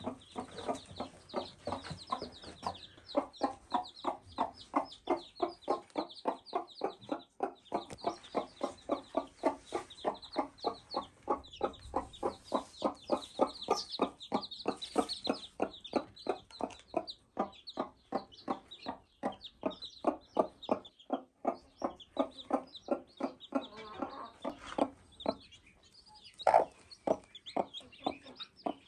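Gürk mother hen clucking steadily to her newly hatched chicks, short low clucks at about three or four a second, with a brief pause and one louder cluck near the end.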